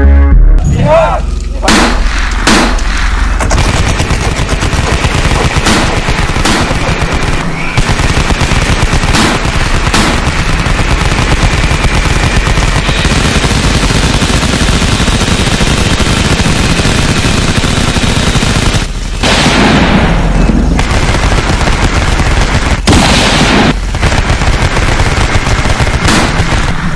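Sustained automatic gunfire from dubbed-in gunshot sound effects: continuous rapid machine-gun fire, with a few louder single shots in the first ten seconds.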